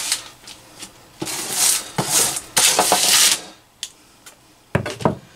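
A plastic scraper scraping roasted vegetables across a metal sheet pan into a saucepan in several rough strokes, with the vegetables sticking to the unlined pan. A few sharp knocks follow near the end.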